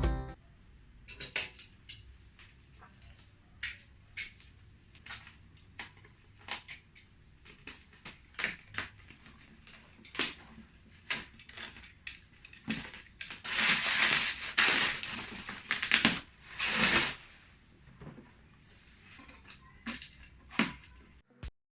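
Mop packaging being handled and opened by hand: scattered clicks and taps, with a few seconds of rustling and crinkling a little past the middle.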